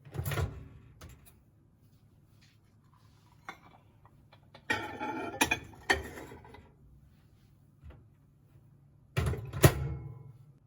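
Kitchenware being handled: sharp knocks and clatter of containers and lids in three bursts, about a second in, around five to six seconds in, and near the end, over a faint steady hum.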